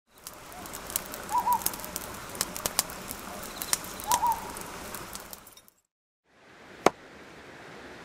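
Wood fire crackling with frequent sharp pops, with a short two-note bird call heard twice over it. After a brief cut to silence, a single sharp chop of an axe into a wooden chopping stump.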